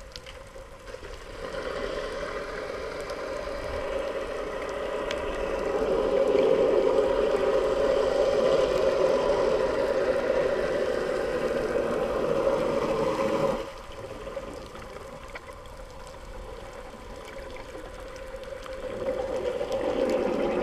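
Muffled underwater water noise heard through a GoPro's waterproof housing: a steady rushing that swells over the first few seconds, drops off suddenly about two-thirds of the way through, and builds again near the end.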